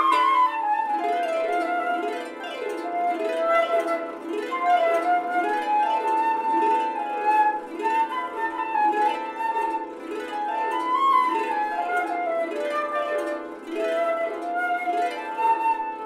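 Flute playing a slow melody of held notes over a Celtic harp's steadily repeated plucked arpeggios.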